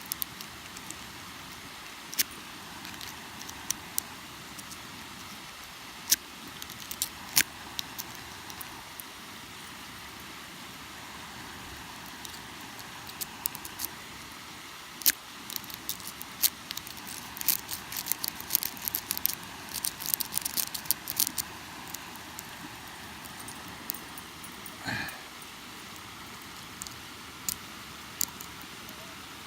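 Lock-picking tools working in a 63 mm steel padlock: scattered sharp metallic clicks and taps, with a dense run of rapid clicks in the middle, over a steady background hiss.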